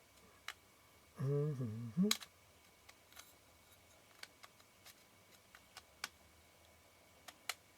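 Small metal lens parts and tools clicking and tapping while being fitted into the focus assembly of a Nikon Ai-Nikkor 135mm f/2 lens: about a dozen light, separate clicks. About a second in, a short murmured hum from the repairer.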